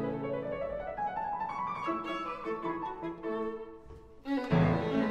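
Classical violin and piano music: a bowed violin melody of sustained notes over piano, with a louder passage coming in near the end.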